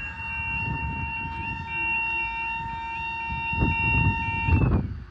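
UK level crossing flat-tone audible warning alarm sounding as one steady, unbroken tone, with a fainter tone stepping up and down about twice a second behind it. The alarm cuts off about four and a half seconds in.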